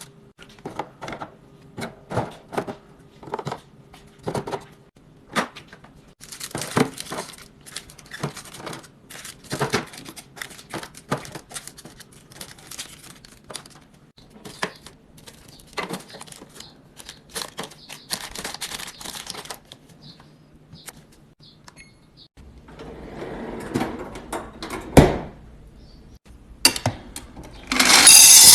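Food containers and packages being handled and set down in a refrigerator: a string of light knocks and clicks with patches of rustling packaging. There is a louder knock late on and a loud rustling burst at the very end.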